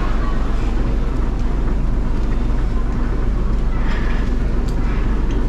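A fishing boat's engine running steadily with a low, even hum.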